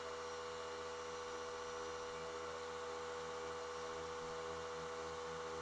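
McGraw 3-gallon 1/3 HP oil-free hot dog air compressor running, heard faintly as a steady hum, refilling its tank while a tire is being inflated.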